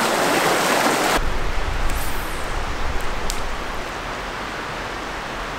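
Creek water rushing over rocks, loud and close, for about a second. It cuts off suddenly into a quieter, steady hiss of more distant flowing water with a low rumble underneath.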